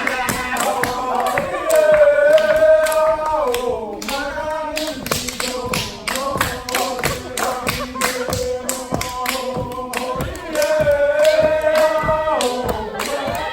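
A group singing in long held notes over steady rhythmic beats, about three a second. The voices swell twice.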